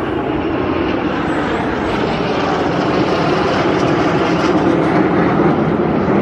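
Jet engine roar from a formation of airliners and small jets flying over, a steady noise that grows slightly louder.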